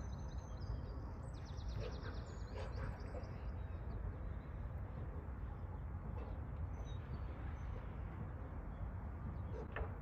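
Outdoor pond ambience: a steady low rumble of wind on the microphone, with small songbirds chirping, including a rapid trill in the first few seconds and a few brief high calls later on.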